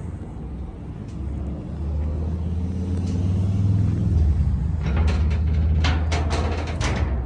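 A low, steady engine rumble that grows louder over the first few seconds, with a run of sharp clicks and knocks in the last couple of seconds.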